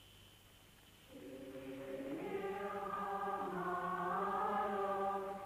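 Choir singing a slow, sustained chant on the soundtrack. It comes in about a second in, after a brief near-silent gap.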